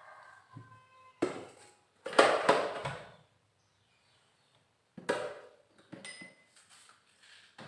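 A few separate knocks and clatters of household objects being handled, the loudest and longest about two seconds in, with a dead gap in the middle.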